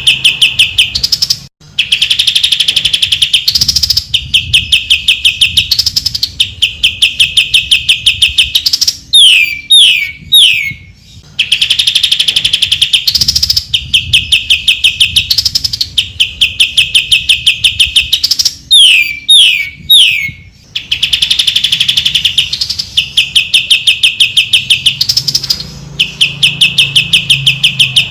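Greater green leafbird (cucak ijo) singing: fast, even chattering trills in phrases about two seconds long, broken twice by quick descending whistles. The same phrases repeat about every ten seconds.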